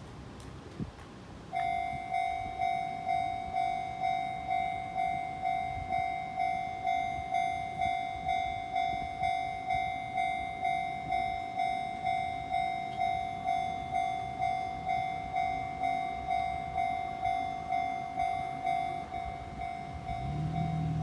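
Japanese railway level-crossing warning bell ringing its repeated clang, about two strikes a second, starting about a second and a half in. A low rumble rises near the end.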